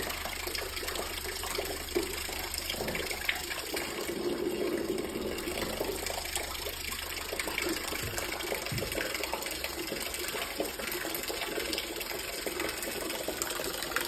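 Thin stream of water falling from a tube and splashing steadily into a basin, over a steady low hum from the loudspeaker that vibrates the tube.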